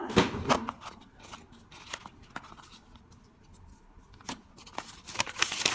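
Parcel packaging being handled and opened by hand: scattered clicks and rustling, with a louder burst of rustling near the end.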